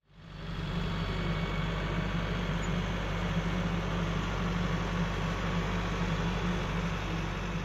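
Kioti tractor's diesel engine running steadily while its front loader lifts and dumps dirt; the sound fades in over the first second.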